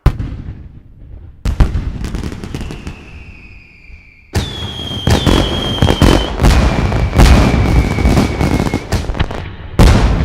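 Fireworks going off: a sharp bang at once and another about a second and a half in, then steady whistling tones. About four seconds in a loud barrage of bursts and crackling begins, with whistles running over it, and one more sharp bang comes near the end.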